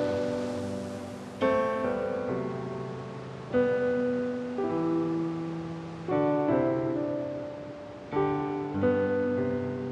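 Slow piano music: chords struck about every two seconds, each left to ring and fade before the next.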